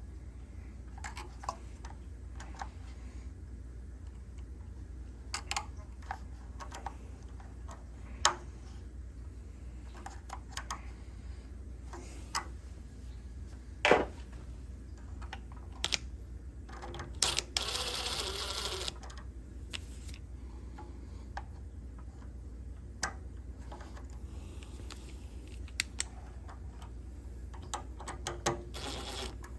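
Scattered clicks and knocks of tools and metal parts being handled, with one rasping stretch of about a second and a half just past the middle, over a steady low hum.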